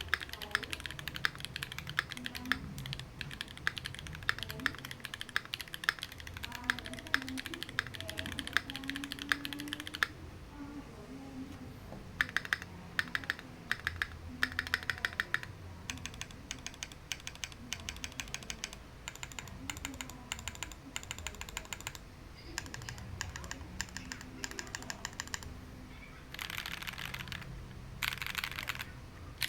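Typing on a Keychron Q2 mechanical keyboard fitted with Akko Cream Black V3 Pro linear switches. Fast, even keystrokes for about ten seconds, then shorter runs of typing with pauses, and two dense runs of keystrokes near the end.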